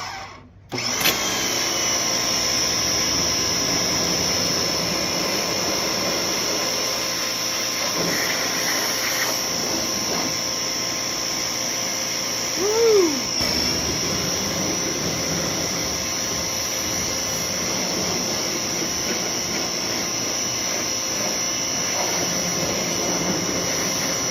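Westinghouse ePX3500 electric pressure washer running: the motor and pump start up about a second in and then run steadily under load with a constant high whine while it sprays.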